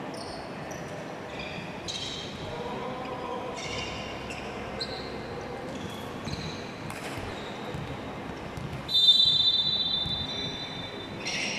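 A volleyball referee's whistle blows one steady, shrill blast about nine seconds in, lasting about a second and a half, the usual signal to serve. Before it come short, scattered squeaks of players' shoes on the hard court floor.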